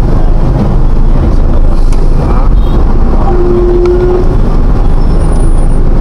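Loud, steady rumble of road traffic heard from inside a vehicle moving slowly among trucks and jeepneys. Its own engine and the surrounding heavy vehicles blend into one continuous drone. A brief steady tone sounds for about a second just past the middle.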